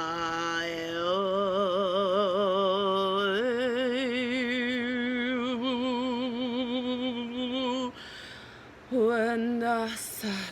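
One voice singing long, wordless light-language tones with a wide vibrato. It steps up in pitch twice and holds the highest note for several seconds, pauses briefly near the end, then sings one short note.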